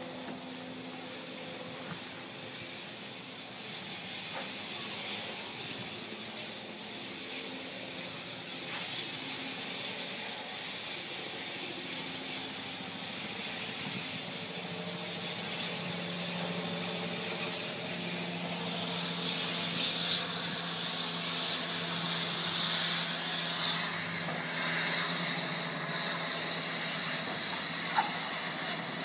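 Large building fire burning with a steady rushing hiss that grows louder about two-thirds of the way through.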